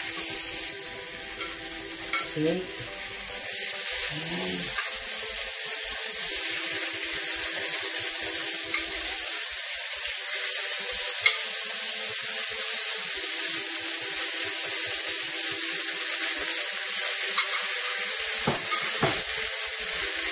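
Beef steaks sizzling steadily in hot olive oil in a frying pan as they are laid in, with a few sharp clicks.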